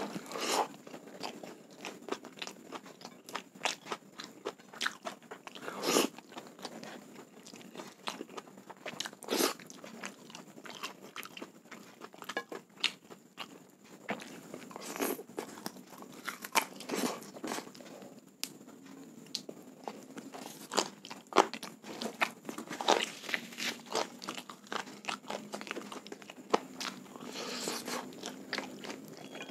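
Close-miked eating sounds of a man chewing and biting soy-sauce-braised chicken thigh with rice, with irregular crunches and clicks throughout.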